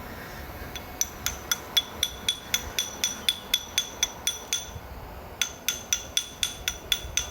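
Small chipping hammer rapidly striking a fresh weld bead, knocking off the slag, about four ringing metal taps a second. There is a short pause near the two-thirds mark before the taps resume.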